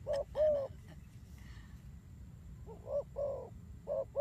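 Spotted doves cooing: short, low, hooting coos in pairs, with a pause of about two seconds between the first pair and the next ones.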